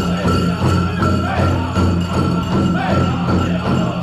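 Powwow drum group playing: a large drum struck in a steady beat while the singers' voices rise and fall over it.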